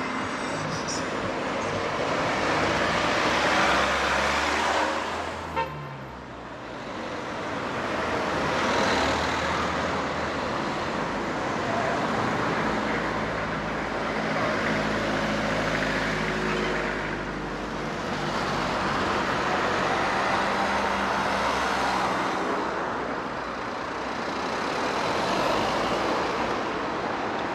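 Street traffic: cars passing one after another, each swelling and fading over a few seconds, over a low engine hum. A single sharp click about five and a half seconds in.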